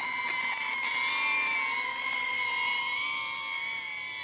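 DJI Avata FPV drone hovering on four-blade Master Airscrew propellers: a steady, whiny, high-pitched propeller drone whose pitch wavers slightly, a little softer near the end.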